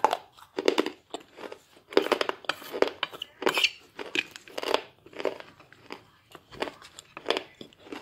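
A person chewing a mouthful of crunchy clay: a close, steady series of sharp crunches, about two a second.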